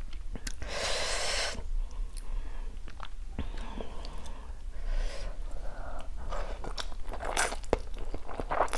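Close-miked eating of spicy Samyang cheese instant noodles: slurps of noodles, a longer one about a second in and more near the end, with wet chewing between.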